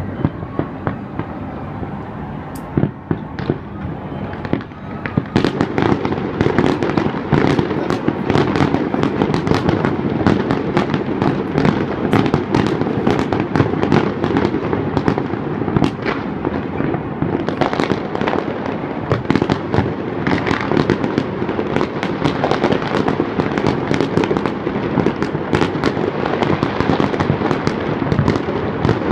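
Fireworks display going off continuously: a dense barrage of bangs and crackles, growing thicker and louder about five seconds in.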